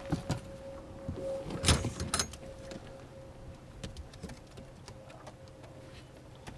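An angler reeling in a fish on a boat: a few sharp knocks and clicks of gear, the loudest about two seconds in, over a faint steady hum.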